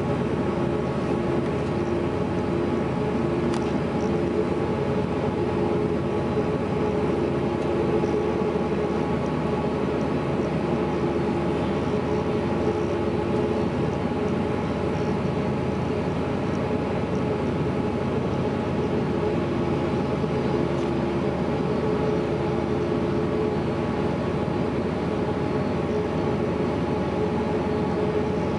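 Steady hum and rush of an airliner cabin during deicing, with a few steady droning tones and no sudden events.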